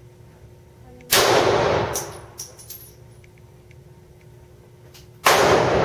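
Two gunshots about four seconds apart, each loud and sudden with a short echoing tail, and a few faint clinks after the first.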